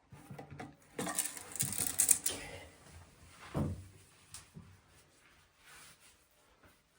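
Handling noises of a towel being worked inside a nearly emptied toilet tank to soak up the last water: rustling and scraping, with one dull knock about three and a half seconds in.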